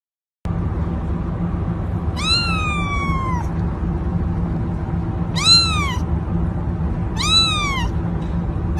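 A domestic cat meowing three times, each call rising and then falling in pitch, the first one longer and drawn out, over a steady low background hum.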